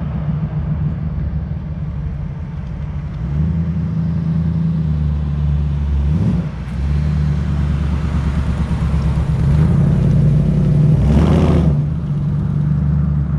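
Ford Bronco's engine running as the truck is driven in. It is a steady low hum whose pitch briefly dips and climbs again about six and eleven seconds in, and it swells louder around eleven seconds.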